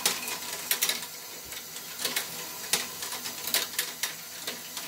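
LEGO Technic great ball contraption modules running off a single LEGO electric motor through a shared drive shaft: a steady whir of plastic gears and axles with irregular sharp clicks and clacks of plastic parts, about one or two a second.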